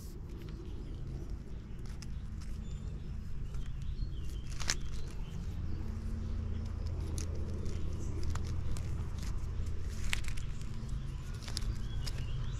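Scattered sharp clicks and handling noise from extension cords being cut apart for their copper and brass ends, over a steady low hum.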